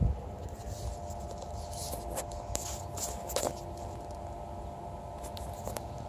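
A thump and then rustling and clicks as feet brush through leafy undergrowth and the phone is handled. Under this runs a steady low hum with a few faint held tones, a constant drone that the uploader thinks comes from a nearby power plant.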